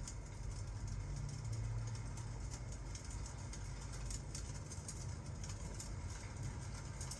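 Fireplace crackling, with scattered sharp pops over a steady hiss of rain and a constant low rumble underneath.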